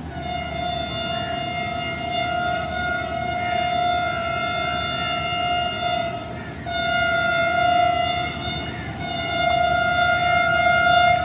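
Pakistan Railways HGMU-30 diesel-electric locomotive sounding its single-note horn as it approaches: a long blast of about six seconds, then two shorter blasts of about two seconds each, over the steady noise of rain.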